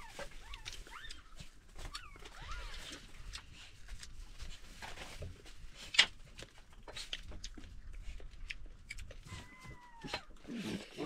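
A dog whining in short, high, wavering cries, several near the start and one longer falling cry near the end. Under them are scattered small clicks and taps, with one sharp click about six seconds in.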